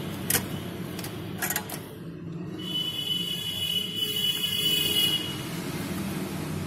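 Steady whir of an electric blower on a soldering bench, with a few light clicks in the first two seconds. A high, steady tone sounds for about two and a half seconds in the middle.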